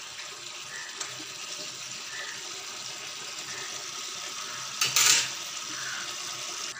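Egg curry simmering in a pan on a gas stove, a steady bubbling hiss, while a steel ladle stirs through it; a brief loud scrape of the ladle against the pan about five seconds in.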